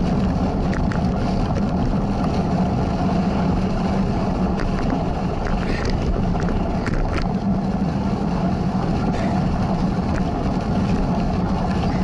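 Steady rumble of a cyclocross bike rolling over a dirt trail, with wind buffeting the bike-mounted camera's microphone and scattered small ticks.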